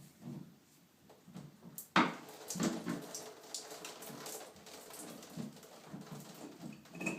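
A metal spanner working a shower rose loose from the shower arm: a sharp metallic clank about two seconds in, then a run of small clicks and scrapes.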